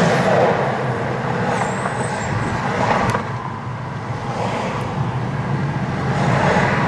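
Steady road traffic and car noise, with one sharp click about three seconds in.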